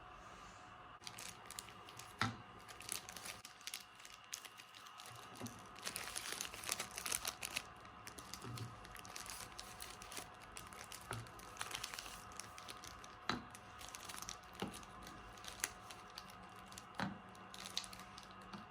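Plastic or paper packaging crinkling and tearing, with scattered light knocks and taps as things are handled, typical of a parcel being opened.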